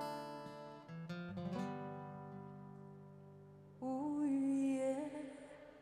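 Two acoustic guitars play the closing plucked notes and strummed chords of a slow ballad, letting them ring and fade. About four seconds in, a woman's voice comes in with a short held sung note over the fading guitars.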